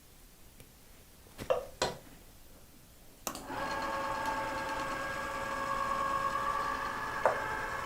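Two sharp clicks, then another click just over three seconds in as a small electric motor switches on and runs with a steady whirring hum.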